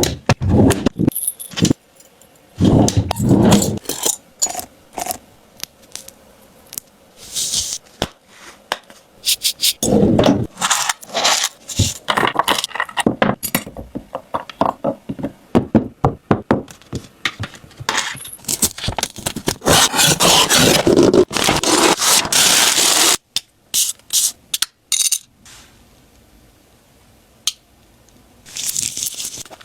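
Close-miked jewellery packing: many small clicks, taps and clinks of jewellery and little boxes being handled. Longer stretches of crinkly rustling and scraping come about a third of the way in and again past the middle, with a shorter burst near the end, as the wrapping is worked.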